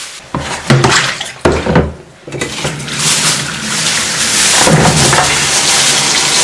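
Kitchen tap running steadily into a plastic basin in the sink, rinsing green chili peppers; the water starts about two and a half seconds in. Before it come a couple of seconds of plastic bag rustling and knocks against the sink.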